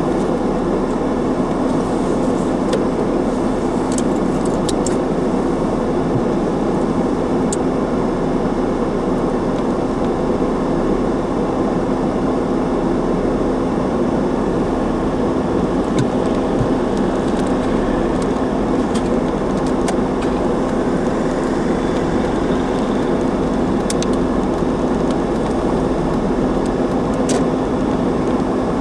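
A car driving at a steady pace, heard from inside the cabin: a constant engine hum over road and tyre noise.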